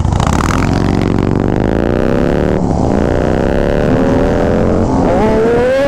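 Harley-Davidson Street Glide's Milwaukee-Eight 135 V-twin pulling hard under acceleration, its pitch climbing steadily for about five seconds. Near the end the pitch dips briefly and then climbs again quickly.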